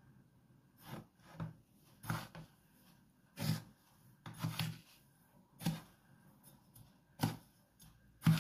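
Metal spoon scraping through dry breadcrumbs against a plastic bowl while a chicken wing is coated: a series of short rasping strokes, about one a second and uneven, the loudest near the end.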